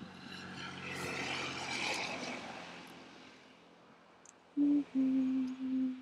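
A motor vehicle passing on the road, swelling to a peak about two seconds in and fading away. Near the end come three short, steady low tones at one pitch, louder than the passing vehicle.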